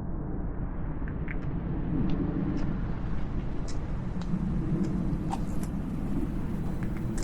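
Steady low outdoor rumble, with a few faint short ticks scattered through it.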